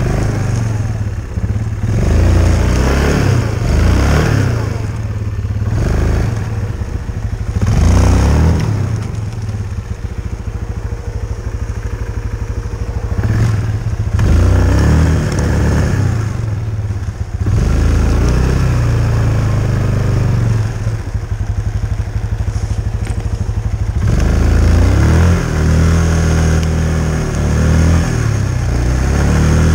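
Yamaha Kodiak 450 ATV's single-cylinder four-stroke engine revving up and down again and again as the quad is driven through deep snow, easing back to a lower note between surges.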